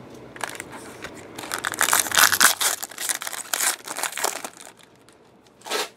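Foil wrapper of a football trading-card pack crinkling as it is handled and torn open by hand. There is a dense run of crackling from about one and a half seconds in that lasts about three seconds, then one short crinkle near the end.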